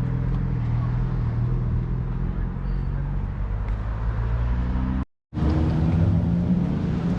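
Car engine running at a steady pitch, climbing slightly just before a brief dropout about five seconds in. After the dropout, an engine rising in pitch.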